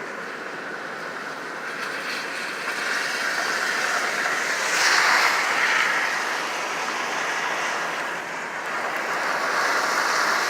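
Car driving along a road, a steady rush of road and wind noise that swells louder about halfway through and again near the end.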